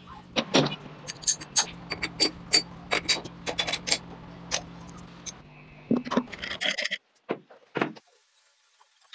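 Small metal gearbox and engine parts of a Vespa scooter clinking and tapping as they are handled and fitted, a quick run of sharp clinks over a steady low hum. The hum stops about seven seconds in, leaving a few separate clicks.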